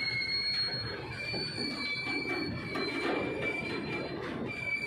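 Freight wagons loaded with long steel rails rolling past on the track, their steel wheels squealing on the rails in steady high-pitched tones over a continuous rumble.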